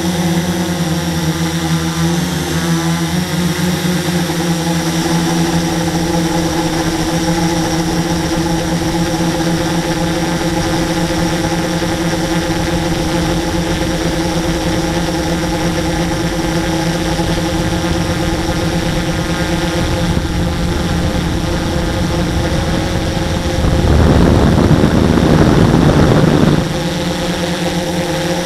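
Radio-controlled model aircraft's motor and propeller running at a steady pitch, heard from on board. Near the end a louder rushing noise swells over it for about three seconds.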